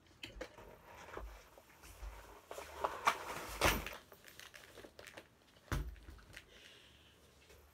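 Handling of a backpack-style hard-shell instrument case: rustling of straps and jacket as it comes off the back, scattered clicks and knocks, and a dull thud a little after the middle as it is set down on the floor.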